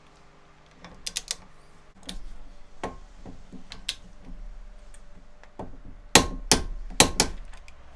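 Metal clicks and clacks of a socket and torque wrench being fitted to and worked on the center bolt at the bottom of a motorcycle fork, tightening it to 51 ft-lb. A few light clicks come about a second in, and the loudest, a run of four sharp clicks, about six to seven seconds in.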